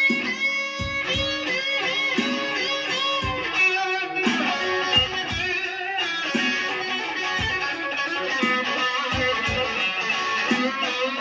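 Electric guitar playing a slow blues lead, with sustained notes and string bends. Short low thumps sound underneath.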